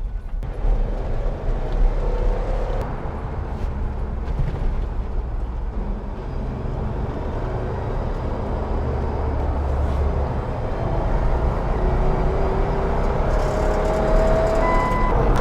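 2007 Jeep Wrangler's 3.8-litre V6 pulling under hard acceleration inside the cabin, over a steady road rumble; the engine note slowly rises in pitch and gets louder toward the end. The engine has an intermittent misfire that leaves it slow to gain speed with the throttle floored.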